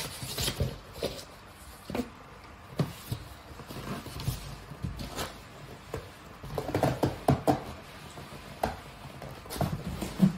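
Cardboard being handled: a shipping box's flaps rustling and the boxed RC car scraping and sliding against the cardboard, with irregular knocks and taps and a sharp knock near the end.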